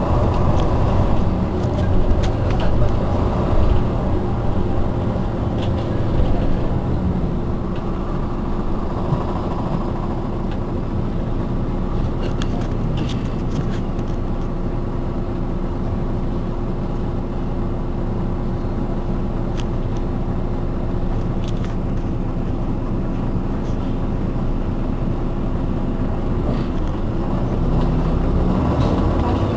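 Iveco Urbanway 18 articulated city bus idling at a standstill, its rear-mounted engine giving a steady low drone with a constant hum.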